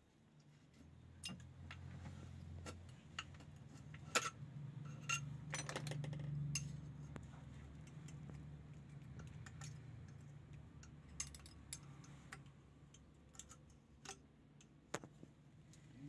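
Light, irregular metallic clicks and clinks of a flat screwdriver and needle-nose pliers working inside a steel steering rack housing as the old steering bushing is pried and pulled out, over a faint steady low hum.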